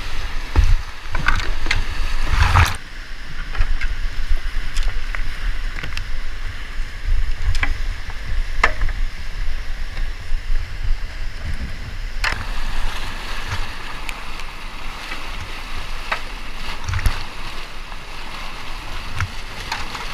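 Whitewater rushing through a rocky creek rapid, heard close up from a kayaker's mounted camera with water splashing over the housing. A few sharp knocks and splashes stand out from the steady rush, the loudest about two and a half seconds in.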